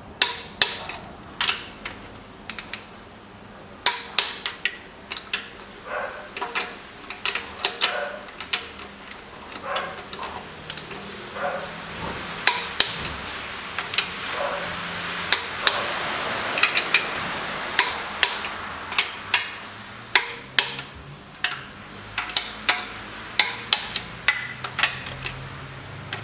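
Torque wrench and socket on the cylinder head bolts of a Toyota 3S-FE engine, tightening them to 49 N·m: a long run of sharp, irregular metallic clicks as the wrench ratchets and the socket is moved from bolt to bolt.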